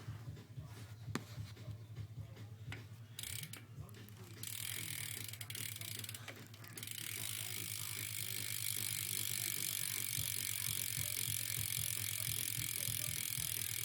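Fly BMX rear hub freewheeling as the wheel spins: the pawls tick rapidly at first, then blur into a fast, steady ratcheting buzz that grows louder about seven seconds in.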